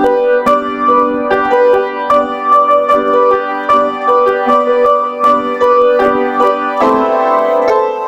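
Background music: a piano or electric piano playing a steady run of single notes, about two to three a second, settling on a held chord near the end.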